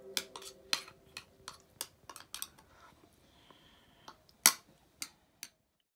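Cutlery clinking and tapping against a plate: a run of light, uneven clicks, the loudest about four and a half seconds in.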